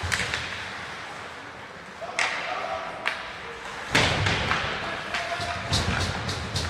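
Ice hockey play: sharp knocks of puck and sticks against the boards and ice, several in a row with the loudest about four seconds in, echoing in the rink. Faint shouting voices lie underneath.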